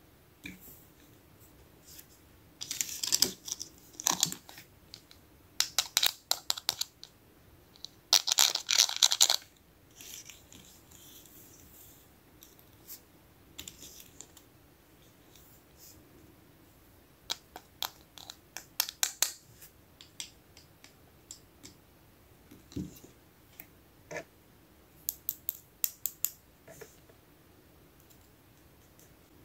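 Small plastic toy kitchen pieces being handled: a toy juicer set down and plastic utensils picked up, giving light clicks and taps, with two louder bursts of crackly rustling, about three seconds in and again about eight seconds in.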